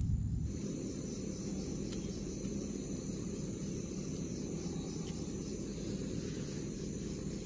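Steady high insect chirring, unbroken throughout, over a low steady rumble of outdoor ambience, with a few faint ticks.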